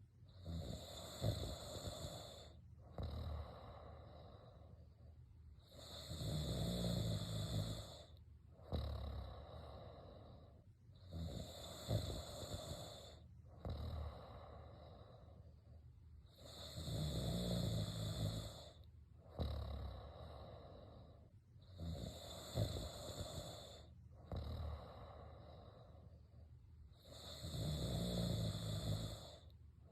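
Snoring in a slow, even rhythm: a rasping breath about every two and a half seconds, with a heavier, deeper snore about every ten seconds.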